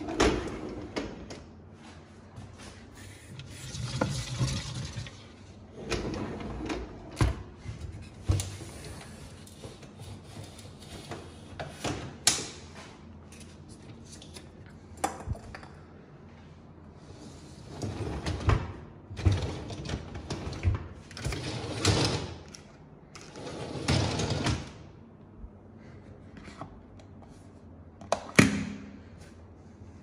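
Wire racks of a Beko dishwasher being slid in and out on their rails and handled: repeated rattling, sliding clunks and sharp clicks in many short separate bursts.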